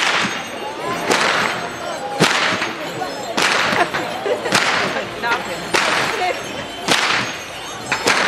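A long carnival whip cracked over and over in a steady rhythm: eight sharp cracks, a little more than one a second, each with a short echo.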